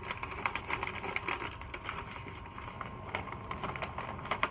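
Crinkling and rustling of a foil-plastic chip bag and its paper label being handled and pressed down by hand: many small irregular crackles.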